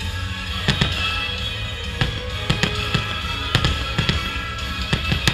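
Fireworks show soundtrack music playing loudly, with several sharp bangs of fireworks shells bursting over it at irregular intervals.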